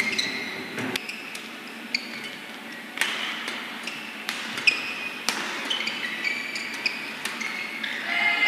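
Badminton rally: sharp cracks of rackets striking the shuttlecock, roughly once a second, with short high squeaks of players' shoes on the court mat. Near the end, crowd noise swells.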